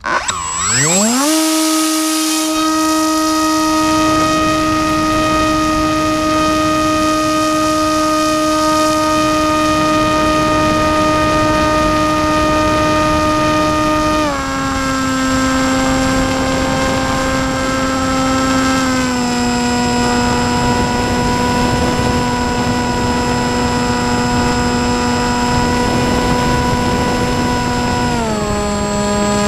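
D2826-6 2200kv brushless outrunner motor turning a 6x4 propeller on an FPV flying wing: a high whine that spools up quickly to full throttle in the first second or so. It then holds steady and steps down in pitch three times as the throttle is eased back.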